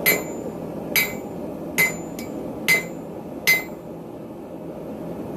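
Forging hammer striking steel on a Hay Budden anvil: five ringing blows roughly a second apart with one lighter tap among them, stopping about three and a half seconds in.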